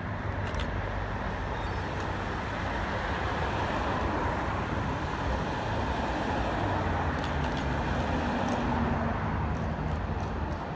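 Blackpool tram running past, a steady rumble with a low hum that swells through the middle and eases near the end.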